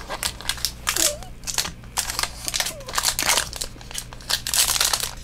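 Foil wrapper of a trading card booster pack crinkling and crackling as it is handled and pulled open, in irregular short crackles.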